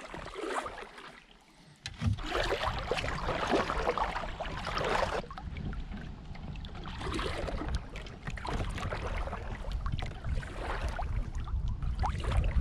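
Kayak paddle strokes dipping and splashing through the lake water in an uneven rhythm, with a steady low wind rumble on the microphone starting about two seconds in.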